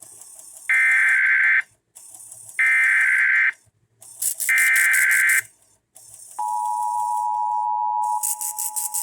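Emergency Alert System tones: three separate one-second bursts of SAME header data, then the steady two-tone EAS attention signal starting about six seconds in, over a background hiss.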